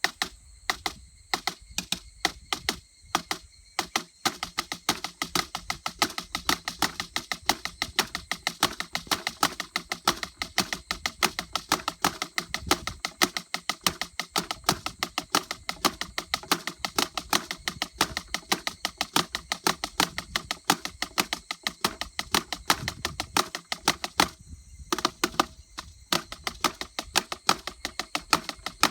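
A drum played in a bossa nova rhythm, its head giving a rattly, shaker-like sound on each stroke. The strokes are sparse at first, then run on as a steady, fast pattern with one short break near the end.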